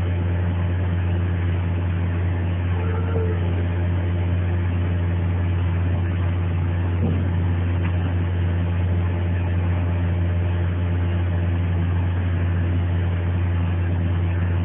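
A steady low machine hum with no rhythm, even and unchanging.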